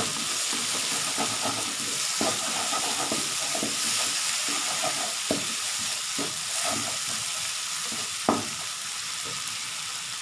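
Blended curry spice paste sizzling in hot oil while a spatula stirs it, with irregular scrapes and knocks against the pan and a sharper knock about eight seconds in. The paste is being sautéed until the oil separates from it.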